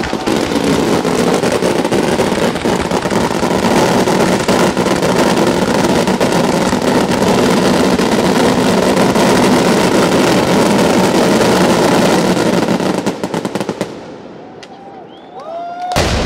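A batteria sanseverese, a long ground chain of firecrackers, firing in a dense, continuous rattle of bangs that thins out and stops about 13 seconds in, followed by one loud bang near the end.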